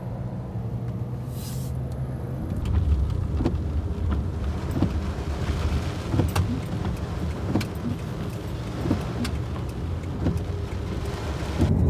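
Car running on the road, heard from inside the cabin as a steady low rumble. About two and a half seconds in the sound changes to driving in rain: tyres hiss on the wet pavement and raindrops tap irregularly on the windshield.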